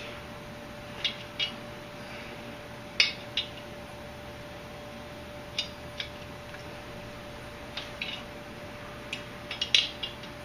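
Sharp metallic clicks and clinks of a wrench working a threaded male air coupler tight into an air compressor fitting, coming irregularly, often in pairs, over a steady faint hum.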